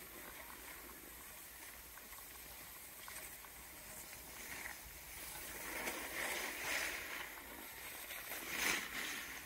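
Snowboard sliding over packed snow: a hissing scrape of the board's base and edges, growing louder in the second half with a few stronger scraping surges.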